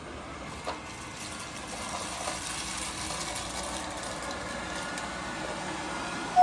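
Liectroux robot vacuum running steadily on a parquet floor, its suction motor and brushes sweeping up scattered sugar, coconut, coffee and rice, a little louder about two seconds in.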